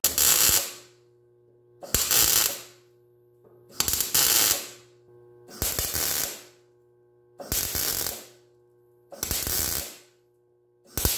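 Welder laying a row of short stitch welds on a sheet-metal floor patch: about six crackling bursts, each under a second long and roughly two seconds apart.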